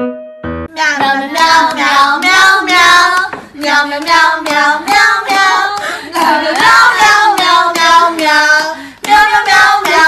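High-pitched singing, a quick run of short sung syllables with a brief pause near the end.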